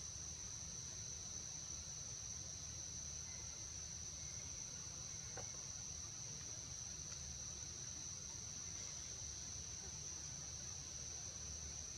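Steady insect chorus: one continuous high, shrill drone that does not change, over a low steady rumble.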